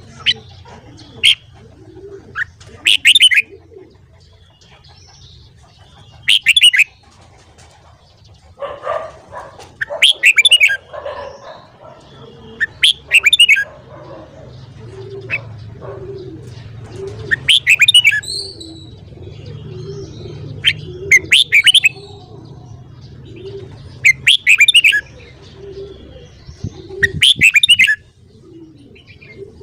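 Red-whiskered bulbul singing loud, short warbled song phrases, one about every three to four seconds. Softer, lower calls and a faint low hum sit underneath.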